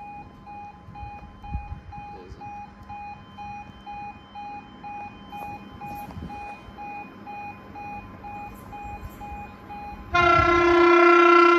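Warning alarm beeping steadily at about two beeps a second, the kind a level crossing gives as a train nears. About ten seconds in, the approaching Siemens Desiro electric multiple unit sounds one loud horn blast.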